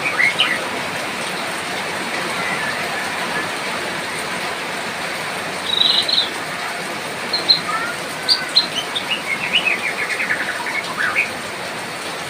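White-rumped shama singing short, quick phrases over the steady hiss of rain. There is a brief burst near the start, then a longer run of rapid, varied notes from about six to eleven seconds in.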